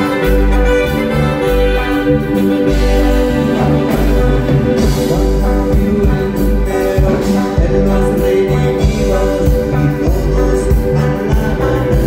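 Live band music played loud through a PA: sustained electronic keyboard chords over a pulsing bass and drums.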